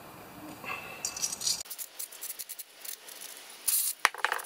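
Light clicks and rattles of small metal carburetor parts being handled over a metal parts pan, with two louder clinks near the end.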